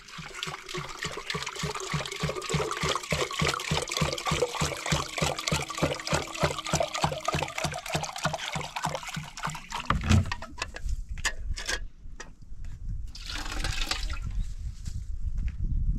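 Water pouring with an even glugging pulse, about four a second, for about ten seconds, then it stops. After that come low rumbling and a few scattered knocks.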